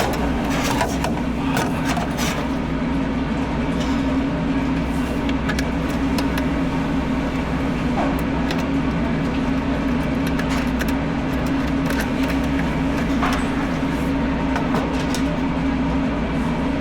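Steady mechanical running noise: an even hum with a strong low drone and scattered light clicks.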